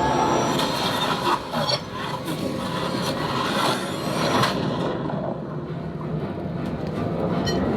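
Millennium Falcon flight-simulator ride sound effects: a dense rumbling, whooshing rush as the ship jumps to light speed, with sharp crackling hits mixed in. The high hiss dies away about five seconds in.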